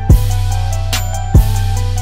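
Hip-hop backing track: a heavy kick drum hits twice, about a second and a quarter apart, over a deep sustained bass and a repeating pitched synth line.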